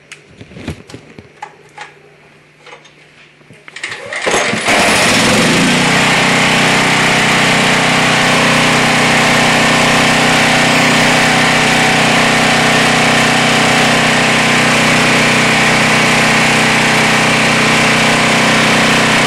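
Craftsman portable generator: a few knocks and clicks as it is handled, then about four seconds in its engine starts and runs steadily and loudly.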